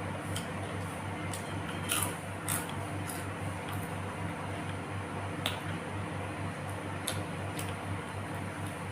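Close-up eating sounds: wet mouth clicks and lip smacks of someone chewing a mouthful of rice and sambal, scattered and irregular, the loudest about two seconds in and again past the middle. Under them runs a steady low hum that pulses rapidly.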